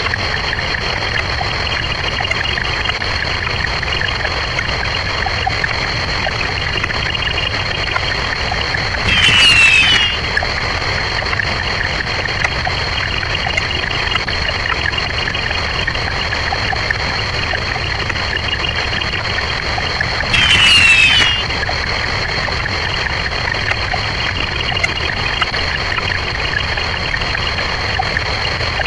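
Many short sound effects sped up far beyond normal and piled together into a steady, hissy wash with a faint band of high tones. Twice, about nine and twenty seconds in, a louder burst about a second long brings quick falling sweeps.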